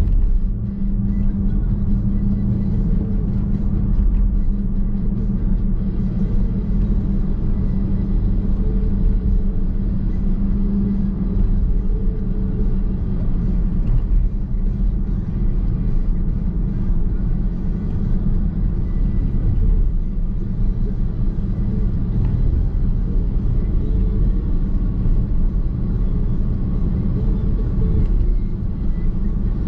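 Steady low rumble of road and tyre noise inside the cabin of a Nissan X-Trail Hybrid driving along at an even pace.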